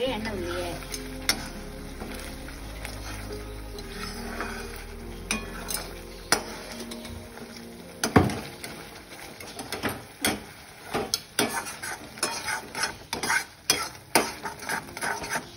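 A perforated steel ladle stirring thick tomato thokku in an aluminium kadai, scraping and knocking against the pan, with a soft sizzle from the paste cooking in oil. There is one sharp knock about eight seconds in, and the strokes come quicker in the last few seconds.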